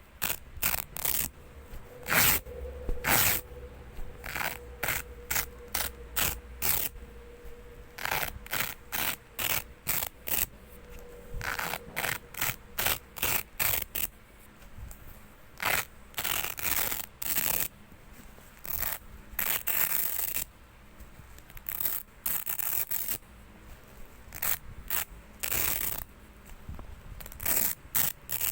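Velcro (hook-and-loop) tape being ripped apart over and over in short rasping tears, mostly quick strokes with a few longer, drawn-out rips, at an irregular pace.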